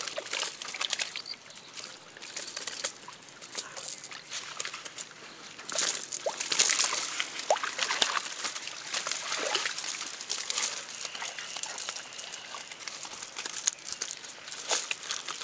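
Water splashing and sloshing as fish thrash in a cast net being gathered up in shallow water, with irregular splashes, drips and crackles of the wet net; the biggest splashes come about six to seven seconds in.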